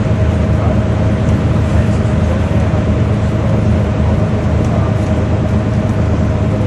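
Inside a moving Scania OmniCity single-deck bus: the diesel engine runs at a steady pitch over continuous road noise.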